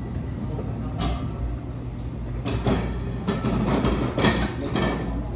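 Close-up eating sounds: a sip from a spoon, then a run of crackly chewing and mouth noises from about halfway through, over a steady low room hum.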